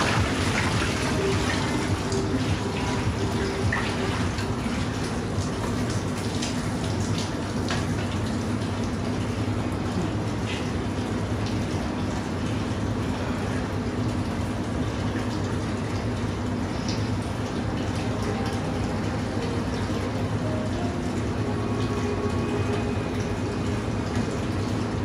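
Water splashing in an ice-bath tub as a person ducks under and scoops it over his head near the start, then steady running, gurgling water in the tub with a low hum under it.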